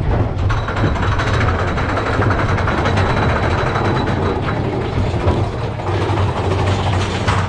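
Mine-train roller coaster running along its track, heard from a seat on the train: a steady low rumble of the cars rolling, with a thin high whine from about half a second in until about four and a half seconds.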